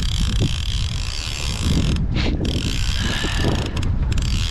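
Fishing reel being wound against a heavy fish, a steady mechanical whirr with ratchet-like clicking that pauses briefly about two seconds in and again near four seconds. Wind rumbles on the microphone underneath.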